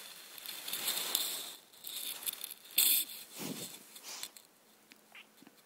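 Soft rustling and scuffing against a blanket close to the microphone, with one sharp click about three seconds in, then it dies away to quiet.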